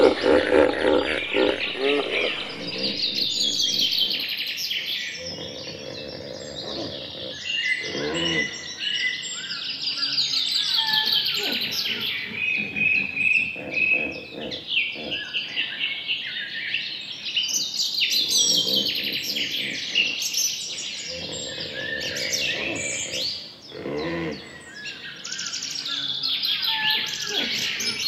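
A dense chorus of birds chirping and singing, many overlapping chirps and trills throughout, with a lower call breaking in now and then.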